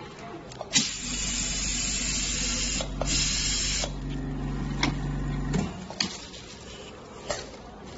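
Portable dental unit spraying from a handpiece into a bucket: a loud hiss for about three seconds, with a short break near the end, over a steady low motor hum from the unit's mini compressor that stops a little after halfway. A few sharp clicks scattered through.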